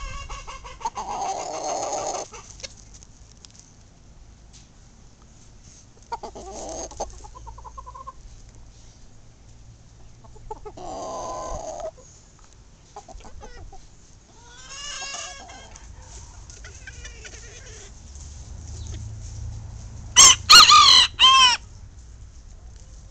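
Old English Game bantam chickens clucking and calling every few seconds, then a bantam rooster crowing loudly near the end, the crow broken into several short parts.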